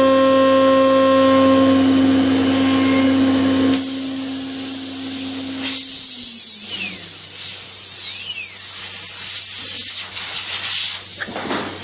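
CNC router spindle whining at a steady pitch while milling aluminium, over a steady hiss. About four seconds in the cutting noise drops away, and around six seconds in the spindle winds down with a falling whine while the hiss carries on.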